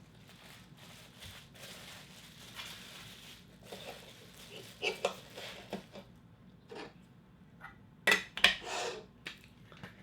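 Hands handling collectible toy packaging: soft rustling, then a few sharp clicks and clinks, loudest about eight seconds in.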